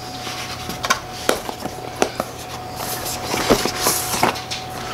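Cardboard and paper packaging being handled: rustling with several light knocks and taps as inserts are lifted out of a cardboard box.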